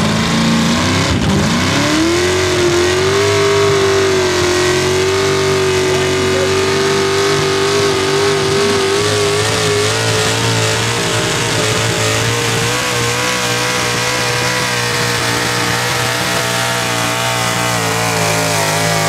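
Hot rod class pulling tractor's engine revving up about a second in at the start of a pull, then held at high, steady full-throttle revs as it drags the weight sled, its pitch creeping slightly higher later on.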